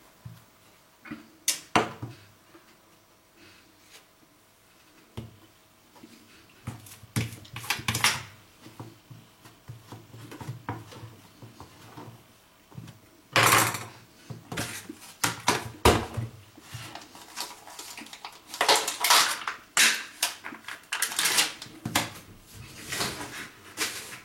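Household handling sounds: light knocks and clicks of things being picked up and set down, with louder rustling or scraping bursts. The sounds are sparse at first and grow busier in the second half.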